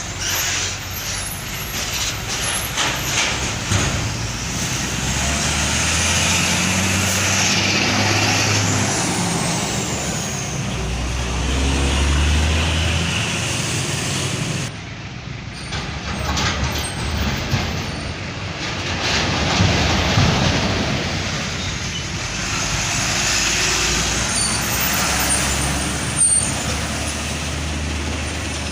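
Heavy trucks driving on a road, engines running, with road noise and a sudden change about halfway through.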